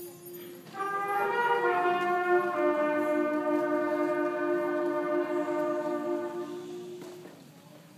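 School concert band with brass holding a sustained final chord. A single low note sounds first, the full band joins about a second in and the chord builds, then dies away near the end.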